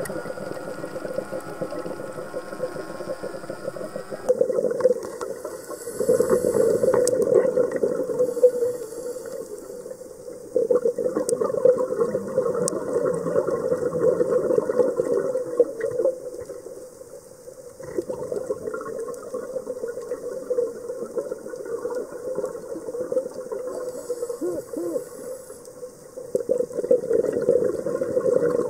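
Scuba diver breathing through a regulator underwater: long bubbling rushes of exhaled air lasting several seconds each, with short quieter gaps between them for the inhales.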